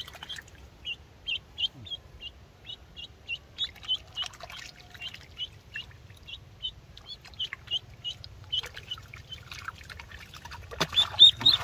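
A duckling peeping over and over, short high calls about two to three a second, growing louder and quicker near the end. Splashing mixes in a few times as it struggles in the water on the end of a fishing line.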